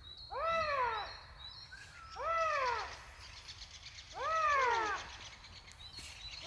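Eurasian lynx calling in the mating season: three drawn-out yowls about two seconds apart, each rising and then falling in pitch.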